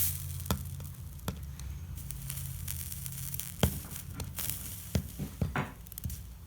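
Soldering iron melting and dragging solder along copper-foiled stained glass seams, with flux faintly sizzling and crackling. Several light clicks and taps are scattered through it over a low steady hum.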